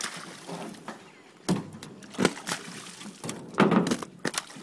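Live fish sliding down a wet plastic tarp into a pond, slapping and splashing into the water in irregular bursts, loudest a little past three and a half seconds in.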